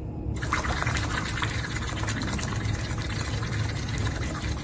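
One long breath blown through a drinking straw into a glass of water, making a steady bubbling that starts about half a second in.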